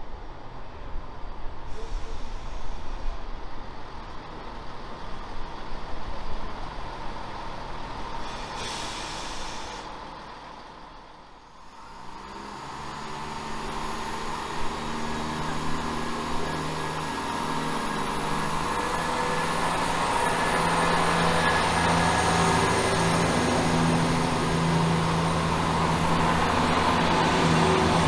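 Diesel multiple unit trains at a station platform: a brief air hiss about nine seconds in. Later a CrossCountry Class 170 Turbostar diesel unit runs in, its engine hum growing steadily louder toward the end.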